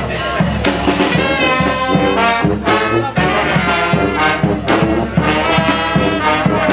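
Brass street band playing a tune together: massed brass horns over a steady drum beat.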